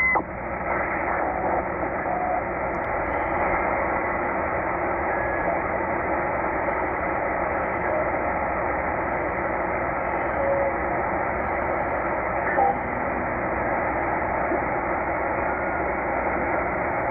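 Tecsun H-501x shortwave receiver in upper sideband being tuned across the 20-meter amateur band: steady band hiss through the radio's speaker. A few brief whistles of passing signals sound as the dial moves.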